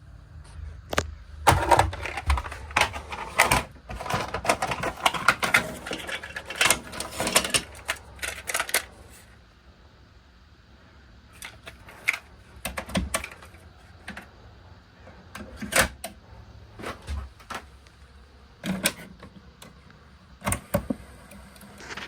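Irregular sharp clicks and clattering knocks, thick and rapid for the first several seconds, then scattered and sparser.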